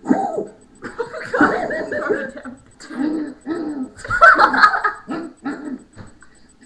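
People laughing in repeated bouts, with the loudest bursts near the start and again about four seconds in.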